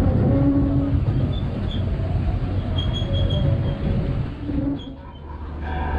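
Disneyland Railroad passenger train rolling along the track: a steady low rumble of wheels on rail with a few brief high wheel squeals. About five seconds in the rumble drops away to a steady low hum.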